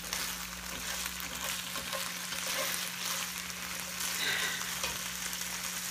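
Food sizzling in a pan on the stovetop, a steady crackly hiss, with a low steady hum underneath.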